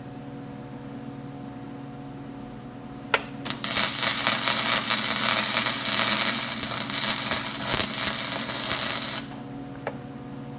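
Flux-core wire-feed welder: a steady hum, then the arc is struck about three seconds in and crackles and sizzles for about five and a half seconds before it stops.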